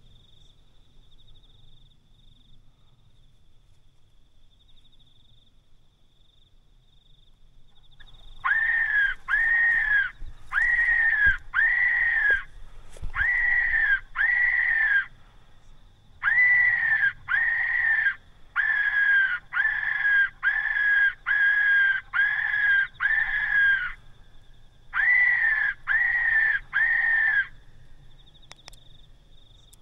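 A shrill squealing cry repeated about twenty times in runs of two to eight, each one the same short note that rises and then falls in pitch.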